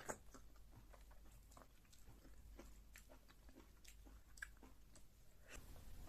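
A person eating and chewing with the mouth close to the microphone: faint wet smacks and clicks, with a louder smack at the very start.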